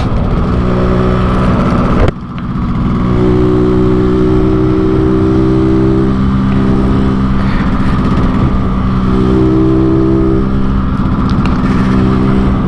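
Yamaha RX King 135 cc two-stroke motorcycle running steadily under way, its exhaust set up 'Medan style' for the deep snoring 'ngorok' note. About two seconds in the sound drops sharply, then comes back up and holds steady.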